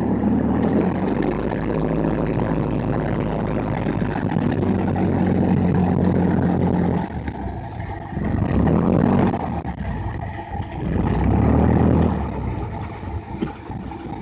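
Cessna 172's engine and propeller running at taxi power, heard inside the cabin: steady for about seven seconds, then easing off and swelling up twice more in the second half as the power is changed.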